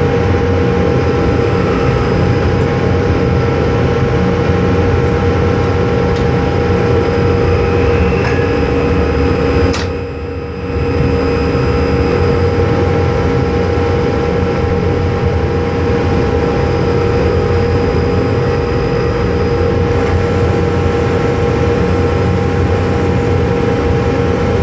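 Drilling-rig floor machinery running steadily while 5 1/2-inch casing is run with a top-drive casing running tool: a loud, constant drone with a steady whine over it. About ten seconds in there is a sharp click and the noise briefly drops, then resumes.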